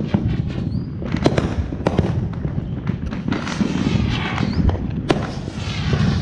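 Many fireworks going off at once: sharp bangs every second or so, some in quick pairs, over a steady low rumble and crackling from other fireworks.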